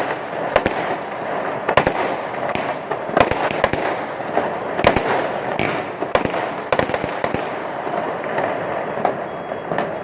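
Fireworks going off: about a dozen sharp bangs at irregular intervals over a continuous background of noise, thinning out in the last couple of seconds.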